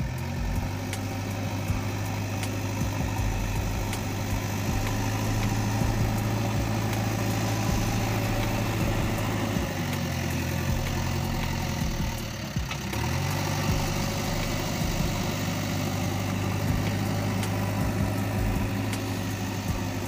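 An engine idling steadily, a low even hum that shifts in pitch about ten seconds in and settles back a few seconds later. Faint clicks of gravel stones run over it.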